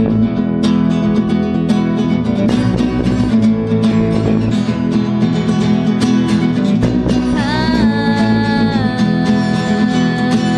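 Live acoustic band playing: nylon-string classical guitar and acoustic guitar picking over a bass guitar, with a woman's voice starting to sing about seven seconds in.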